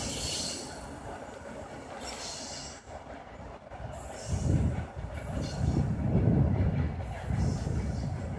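Steel wheels of a departing double-deck passenger train squealing on and off as the coaches roll around a curve. A low rumble swells from about halfway through and is the loudest part.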